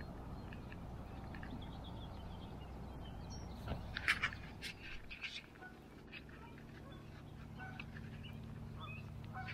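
Waterfowl calling from the lake: a cluster of short, loud calls about four seconds in, then fainter calls near the end, over a steady low outdoor rumble.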